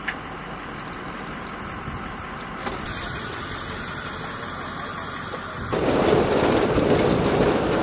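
Steady engine-like mechanical running noise, with no distinct clicks, jumping abruptly louder about six seconds in.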